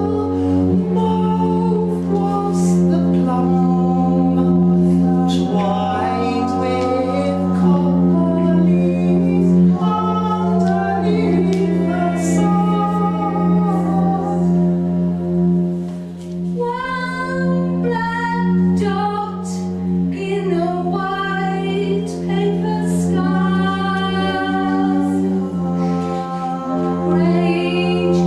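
Live music: a woman singing long held notes and an electric violin being bowed over a steady low drone.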